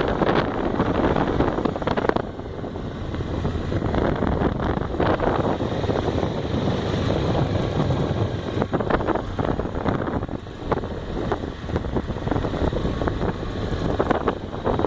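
Wind rushing and buffeting over the microphone of a Honda XRE motorcycle under way, with engine and road noise underneath. The rush swells and eases in gusts.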